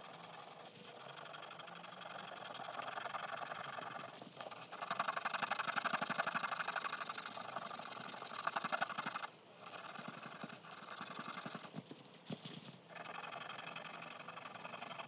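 Abrasive pad scrubbing carbon deposits off a forged aluminium piston crown wet with lubricating spray: a fast, rough rubbing of many quick strokes, loudest in the middle and breaking off briefly about nine seconds in and again around twelve seconds.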